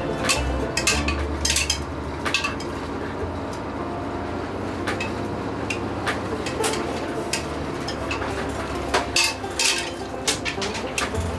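Clattering and clinking of hard objects being handled, with irregular sharp knocks every second or so.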